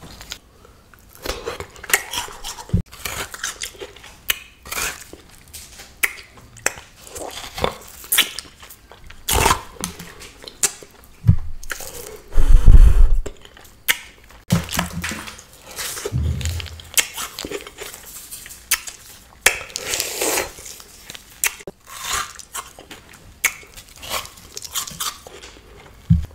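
Close-miked eating of a bread-like pastry shaped like a Coca-Cola bottle: repeated bites, crackly crust-crunching and wet chewing, with some tearing of the dough. There is one loud low thud about halfway through.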